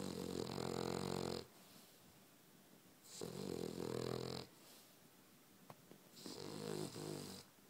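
Dog snoring in its sleep: three long snores about three seconds apart, with quiet breathing between them.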